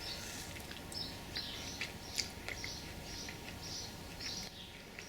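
Birds chirping faintly in short repeated high notes over a low background hiss, with a few faint clicks.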